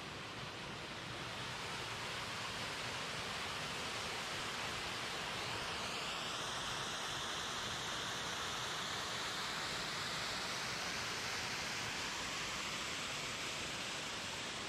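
Small waterfall cascading over rock into a pool: a steady rush of falling water that grows a little louder over the first couple of seconds and then holds.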